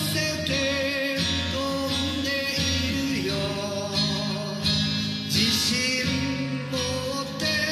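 Acoustic guitar accompanying a man singing a slow pop ballad, played and sung by one performer.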